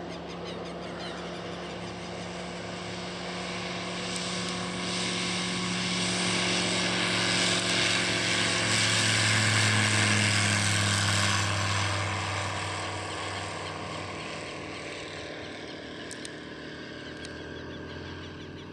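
Dynamic WT9 light aircraft's piston engine and propeller at full take-off power: the drone grows steadily louder as the plane rolls down the runway and lifts off, is loudest about ten seconds in as it passes close by, then fades as it climbs away.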